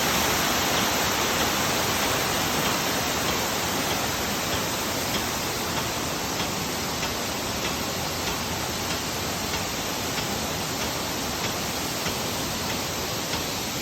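Waterfall: water pouring and rushing steadily, a dense even hiss.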